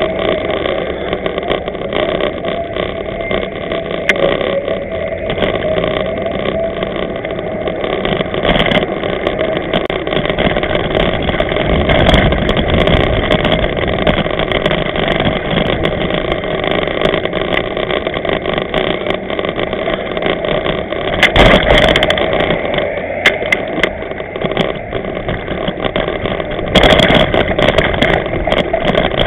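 Steady rumbling noise of a camera on a moving bicycle, with frequent small rattles and clicks from riding over city streets, and two louder knocks, about two-thirds of the way in and near the end.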